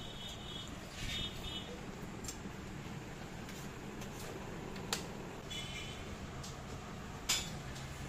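Quiet background of a small eatery: a steady low hum with a few sharp clicks, the loudest about seven seconds in.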